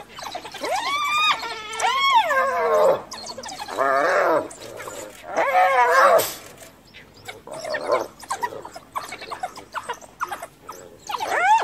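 Spotted hyena cornered and bitten by African wild dogs, giving a series of high, wavering squeals and yelps: distress calls under attack.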